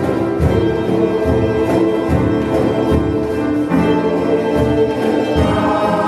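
A choir sings a song in held chords, with piano and harmonica accompaniment over a steady djembe beat. The chords change twice in the second half.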